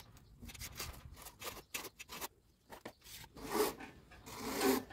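Steel trowel scraping acrylic putty thinly across an EPS foam board in quick, short strokes, then two longer, louder scrapes near the end.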